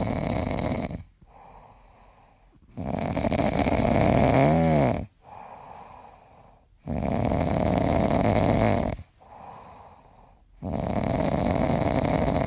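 Yellow Labrador snoring in deep sleep: four long snores of about two seconds each, roughly every four seconds, with softer breaths out between them. The second snore carries a brief whistle that rises and falls in pitch.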